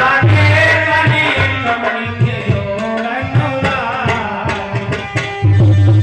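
Indian music with tabla drumming under a pitched melody line. A steady low drone thins out in the middle and comes back strongly about five and a half seconds in.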